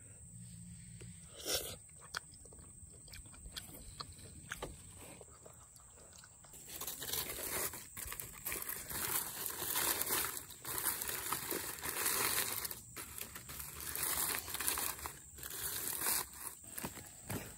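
Blackened aluminium foil crumpling and crinkling as hands pull it open, in irregular rustling bursts that start about six seconds in; before that only a few faint clicks.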